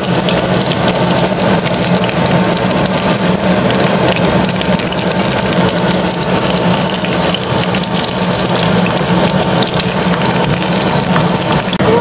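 Pan-fried pork buns sizzling steadily in hot oil in a wide pan, with a wooden spatula lightly scraping and knocking against the pan as the buns are shifted, over a steady low hum.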